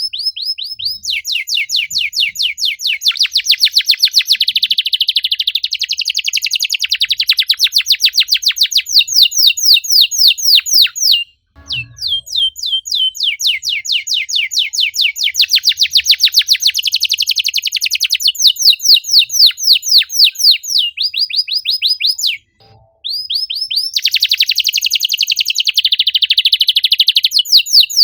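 Domestic canary singing fast, tightly packed trills of rapid repeated chirps, high and sweeping down. The trills run almost without pause, with two short breaks, one near the middle and one about five seconds from the end.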